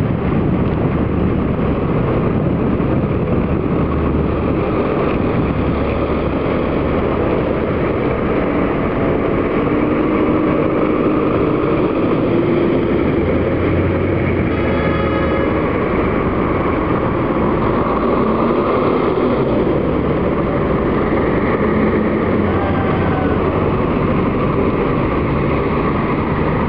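City buses' engines running and idling as buses pull past, a steady loud rumble, with a short tone about halfway through.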